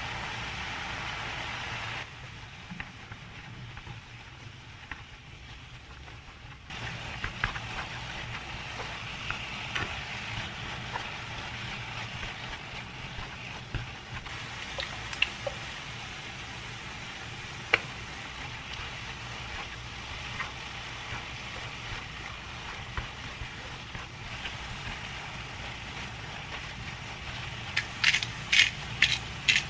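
Enoki mushrooms, cherry tomatoes and onion sizzling in a frying pan while being stirred with wooden chopsticks, which click against the pan now and then. Near the end a pepper mill starts grinding in a fast run of loud clicks.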